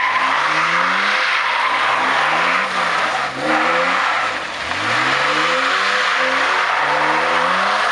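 BMW E23 728i's 2.8-litre M30 straight-six revving up and down repeatedly as the car drifts, dropping low about halfway through and climbing again. A loud steady hiss of tyre and road noise runs underneath.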